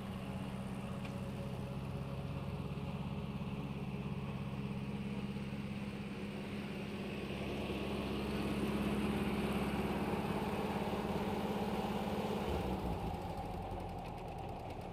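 Diesel farm tractor engine running steadily as it pulls a mounted grass mower across a lawn. It grows louder as the tractor passes close, then the engine note changes and drops back a couple of seconds before the end as the tractor moves away.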